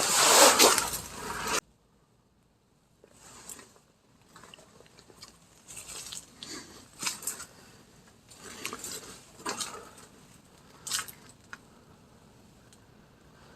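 Irregular crunching steps on debris, a few short crackles about a second apart. Before them, a louder noisy sound stops abruptly about a second and a half in.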